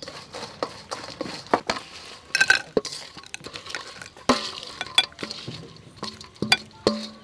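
A utensil clinking and scraping in a stainless steel mixing bowl as cooked snails are tossed and tipped out onto a plate, in irregular sharp knocks. In the second half, several knocks leave the metal bowl ringing briefly.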